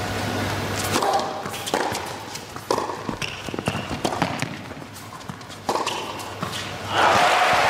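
Tennis rally: a series of sharp racket strikes on the ball about a second or so apart, with short grunts from the players on some shots. From about seven seconds in the crowd breaks into loud applause and cheering as the point ends.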